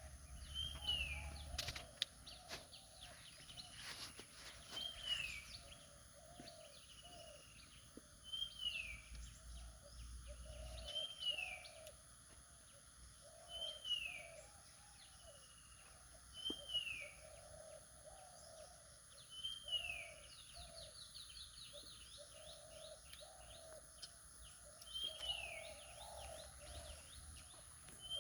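Birds calling: a short down-slurred whistle repeated about every three seconds over a lower repeated cooing, with a steady high-pitched hum underneath. Low rumbling in the first ten seconds or so.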